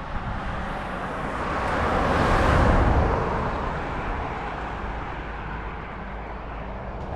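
A road vehicle passing by: its noise swells to a peak about two and a half seconds in, then fades away.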